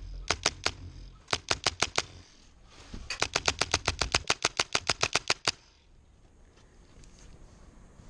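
Airsoft rifle firing in quick bursts of sharp cracks, about eight shots a second. There is a short burst of about three shots, then one of about five, then a longer string of about twenty that stops about five and a half seconds in.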